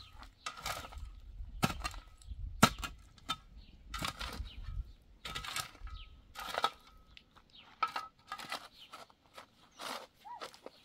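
A run of irregular knocks and scrapes, several with a brief ringing tone after them, including two sharp cracks about two and two and a half seconds in.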